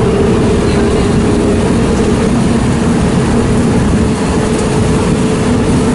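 A bus's engine and road noise heard from inside the passenger cabin while it drives along: a loud, steady drone with a steady whine running over it.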